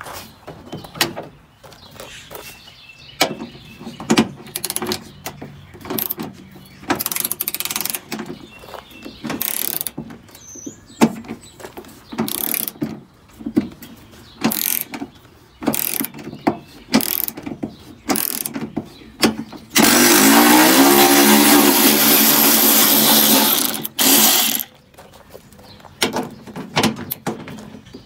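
Cordless electric ratchet whirring in short bursts as fender bolts are run out, with one longer run of about four seconds late on, its pitch rising as it spins up. Sharp clicks and clanks of tools and metal parts come between the runs.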